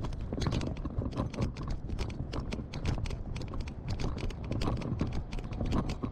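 Rapid, irregular clicks and knocks from footsteps on pavement and a handheld camera jostling as it is carried while walking, over a low steady rumble.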